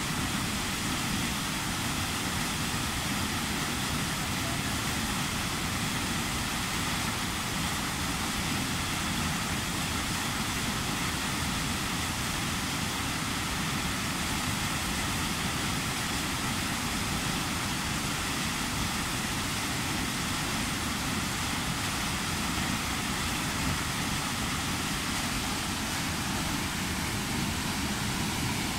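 Waterfall pouring into a river pool: a steady, unbroken rush of water.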